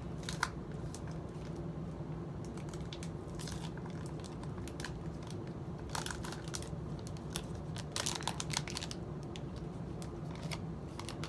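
Hershey's chocolate bar packaging being opened by hand: irregular crinkling and tearing, with clusters of crackles a few seconds apart, over a low steady hum.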